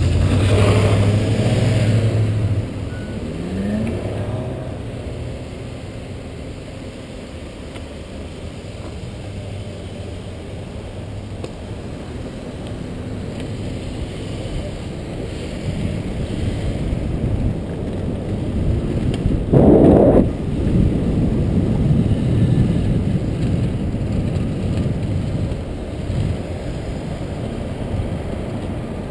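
Street traffic heard from a moving bicycle: a car engine running close by at first and a car pulling away with a rising tone, then steady road and wind noise as the bike rides on, with one short loud rush about twenty seconds in.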